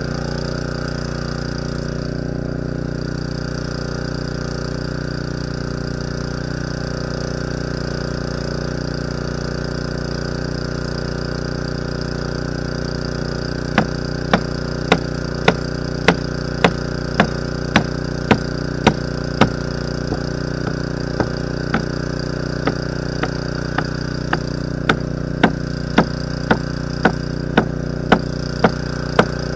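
A small engine idles steadily throughout. About halfway through, a hammer starts striking a hard object on the ground at roughly two blows a second, and it keeps going to the end, with a few softer blows in the middle.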